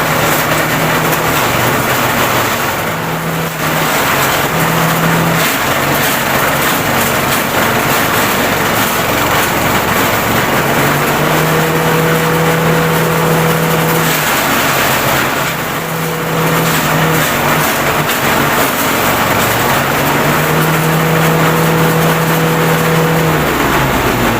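Motorised grass chopper running and shredding grass: a loud, continuous machine din, with a steady hum that comes and goes in stretches over it.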